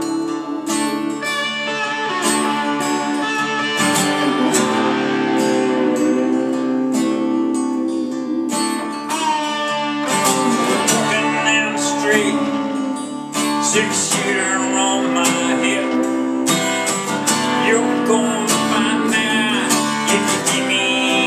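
Song accompaniment led by strummed acoustic guitar, playing an instrumental passage between sung lines.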